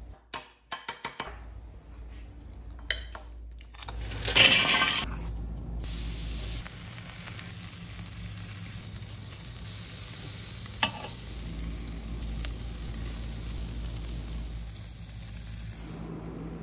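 A few quick clinks against a small glass bowl near the start. Then, after a brief loud rush about four seconds in, skewered beef tenderloin pinwheels sizzle steadily on a charcoal grill grate.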